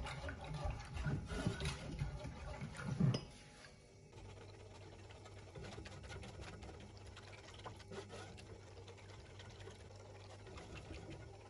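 A silicone whisk stirring a thin cornflour-sugar-water mixture in a nonstick saucepan on the heat, being worked until it thickens: liquid sloshing against the pan. It is louder for the first three seconds, then drops suddenly to a quieter stirring with a faint low hum behind it.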